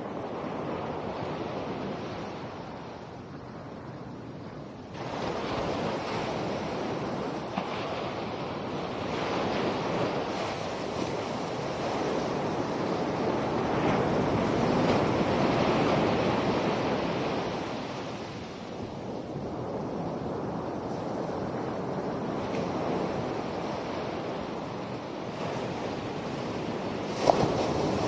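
Ocean surf: waves breaking and washing in, swelling and fading over several seconds, with wind buffeting the microphone. A brief sharp knock near the end.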